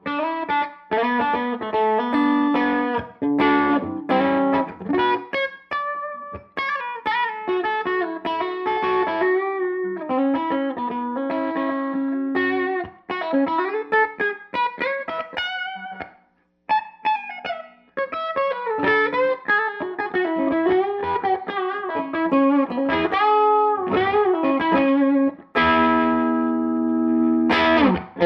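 Electric guitar played through a Tone King Gremlin tube amp's lead channel, with slightly overdriven single-note lead lines and bends. The playing stops briefly about 16 s in, and sustained chords ring near the end.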